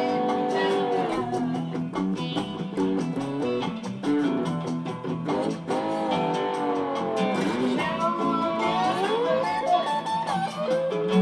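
Blues instrumental on acoustic guitar and slide guitar: a steady plucked accompaniment under sustained slide notes that glide up and down in pitch, with the longest rising slides in the second half.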